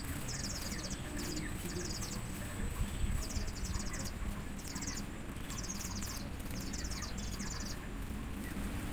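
Insects chirping in short, fast-pulsed high bursts about once a second, each lasting around half a second, with a steady high insect whine that stops about three seconds in.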